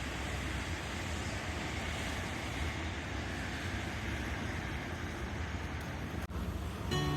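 Steady low rumble and rushing noise of a moving vehicle. It breaks off briefly about six seconds in, and guitar music comes in near the end.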